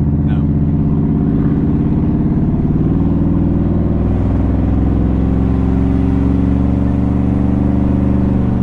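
Straight-piped 1997 Ford F-150 running with true dual exhaust and no mufflers, heard loud from inside the cab as the truck is driven along. A steady, deep exhaust drone.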